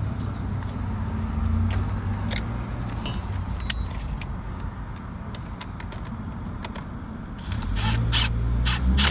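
Scattered small clicks and taps of hand tools on the plastic and metal of a car ignition switch and its mounting bracket, over a steady low hum. The clicks get louder and come faster near the end.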